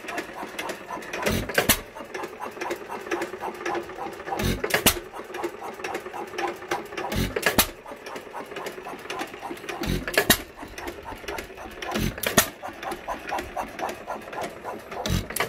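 Amanco Hired Man hit-and-miss stationary engine running: a loud double firing stroke about every three seconds, with fast mechanical ticking from the engine as it coasts between firings.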